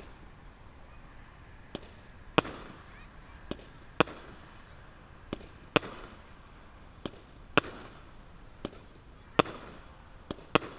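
A 200-gram consumer aerial repeater cake firing shot after shot. Each shot is a quieter lift thump followed about half a second later by a loud break bang that trails off in echo, repeating roughly every one and a half to two seconds.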